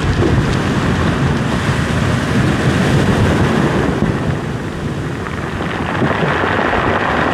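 Wind buffeting the microphone over surf washing in and foaming across a pebble beach: a loud, steady rushing noise, heaviest at the low end.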